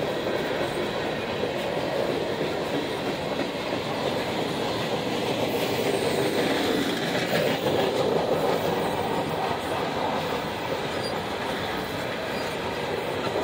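Empty Norfolk Southern coal hopper cars rolling steadily past: a continuous rumble and rattle of steel wheels on the rails, with a faint high wheel squeal from the curve.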